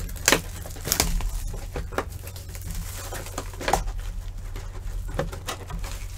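Scattered rustles and taps as a sealed box of trading cards is handled and opened, over a steady low hum.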